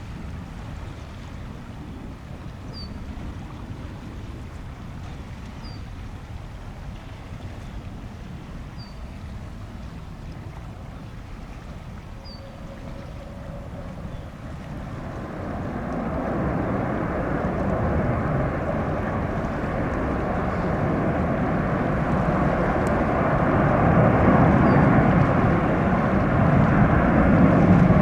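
A low wind rumble, then from about halfway the roar of a jet airliner's engines builds steadily louder as the aircraft approaches.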